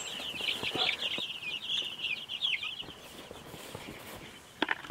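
A brood of baby chicks peeping together in a dense chorus of rapid, high chirps, which fades out about three seconds in. A couple of short, louder calls follow near the end.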